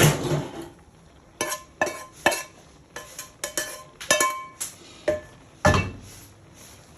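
A metal spoon clinking and scraping against a metal cooking pot while rice and vegetables are stirred. There are about ten separate knocks, each with a brief ring.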